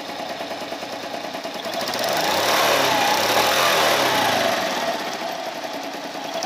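Traxx Moby 50cc scooter's single-cylinder engine running on a new spark plug: idling, then revved up about two seconds in and let back down to idle a few seconds later. It runs smoothly, with no valve-rocker clatter.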